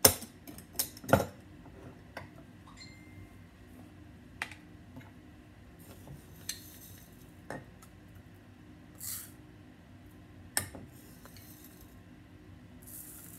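The wire clasp of a glass storage jar snapping open with a few sharp clicks, then a metal spoon clinking and scraping against the glass as rice is scooped out, with short soft hisses of rice grains pouring into a small plastic bottle.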